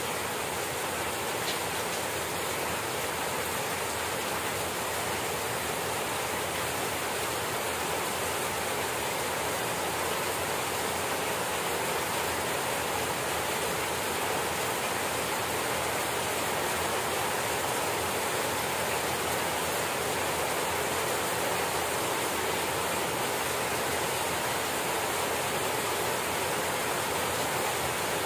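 Steady rain falling on a grassy garden and potted plants, an even, unbroken hiss with no single drops standing out.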